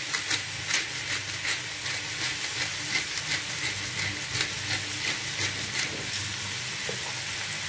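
Minced beef sizzling steadily in a frying pan, with the repeated dry clicks of a pepper grinder being twisted over it.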